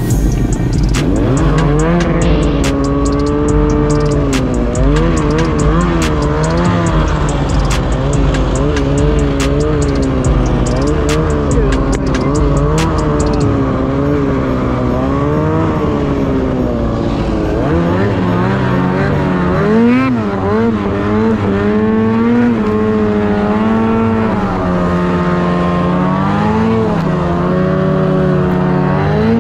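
Snowmobile engine running hard under throttle through deep powder, its pitch rising and falling, with sharp ticks during the first half.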